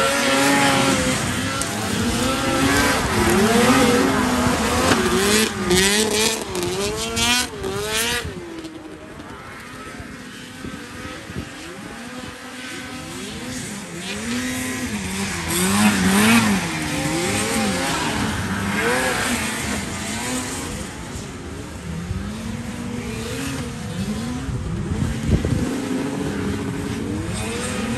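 Vintage racing snowmobiles, several engines at once, revving up and falling back over and over as the sleds work around the course. The sound drops quieter for a few seconds about a third of the way in, then builds again.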